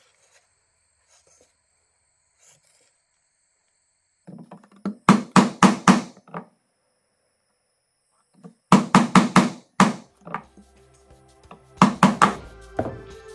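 A wood chisel being struck to chop out a mortise between drilled holes in a block of wood: three quick runs of sharp knocks, about four blows a second, each with a short ring, starting about five seconds in. Background music comes in near the end.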